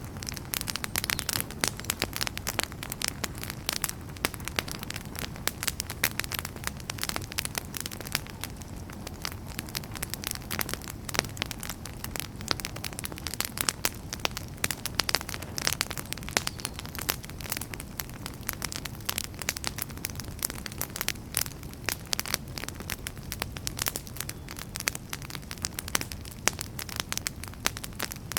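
Wood fire burning in a fireplace: a dense, irregular crackle of sharp pops and snaps over a low steady rumble of flames.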